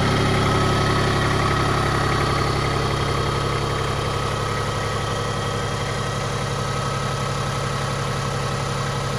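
Iseki TPC153 tracked compact tractor's three-cylinder diesel engine idling steadily, growing slightly quieter about three seconds in.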